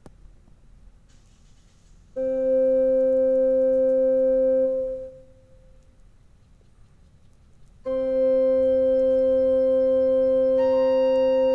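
Yamaha PSR-E263 portable keyboard sounding a steady, sustained note that holds for about two and a half seconds and then fades out. After a pause the same note sounds again and holds, and a second, higher note joins it near the end.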